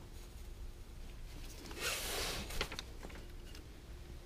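Faint sounds of hands working a wrench on bolts under a motorcycle engine while they are being loosened: a brief rustle about two seconds in, then a couple of light clicks.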